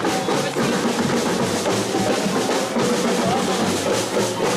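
Drum-led marching music: snare drum rolls over a steady bass drum beat, playing continuously.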